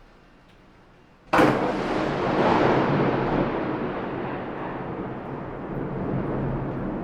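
A close thunderclap about a second in: a sudden sharp crack followed by a long rolling rumble that slowly dies away.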